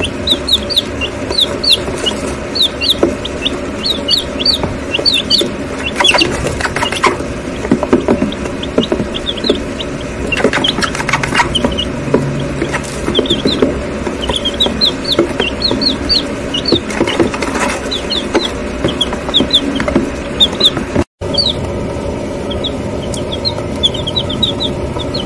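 A group of one-week-old White Leghorn chicks peeping, short high chirps coming in quick clusters, with a few sharp clicks among them. The sound cuts out for an instant near the end.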